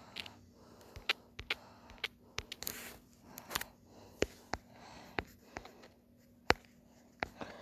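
Irregular light clicks and taps, about a dozen scattered through, from fingers tapping and handling a phone while working its touchscreen, over a faint steady hum.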